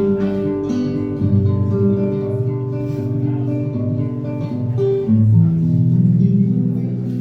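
Instrumental passage of a song with no singing: plucked guitar over a bass line, notes changing about once a second.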